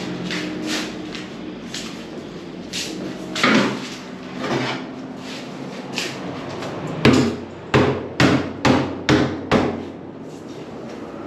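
Knocks and bangs on a wooden wardrobe cabinet as its doors are handled and the cabinet is struck. One louder knock comes about a third of the way in, then a run of about six sharp knocks roughly half a second apart near the end.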